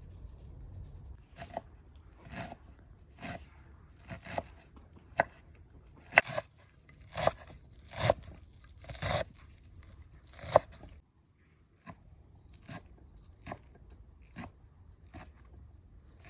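Food being prepared by hand: about fifteen crisp cutting and tearing strokes at an uneven pace, loudest in the middle, with a brief pause a little after halfway.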